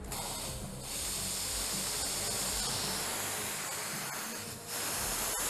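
Espresso machine steam wand blowing off steam in a loud hiss, broken twice by short pauses, just under a second in and near the end.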